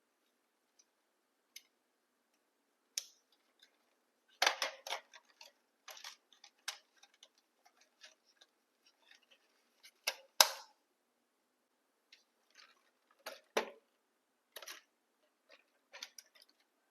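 Irregular small clicks and light knocks from handling the RC truck and its plastic parts and packaging, with a cluster of louder knocks about four and a half seconds in and a single sharp one about ten seconds in.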